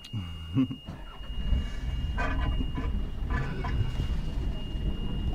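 A short low chuckle, then a steady low engine-like rumble from about a second in, under a thin, steady high tone.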